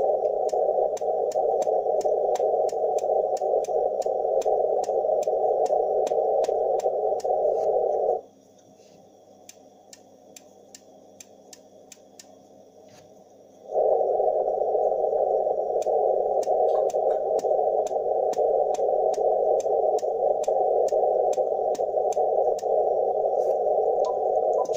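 Icom IC-7610 transceiver in CW mode: hiss from the receiver through a narrow filter, cutting out for about five seconds midway, with a run of sharp clicks, a few a second, as the main tuning knob is turned. The clicks are the DIGI-SEL digital preselector re-tuning.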